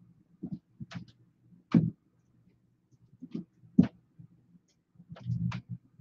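Scattered, irregular knocks and thumps. The two sharpest come about two seconds apart, and a short run of duller knocks follows near the end.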